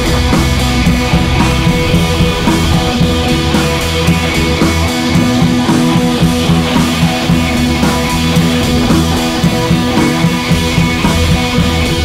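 Rock music with guitar and drums.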